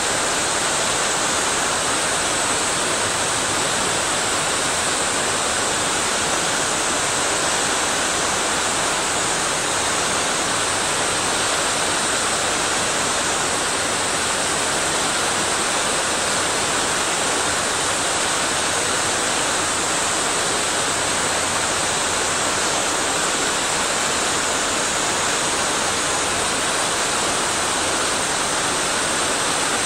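Steady, unbroken rush of a waterfall and mountain stream, with a bright hiss of spray.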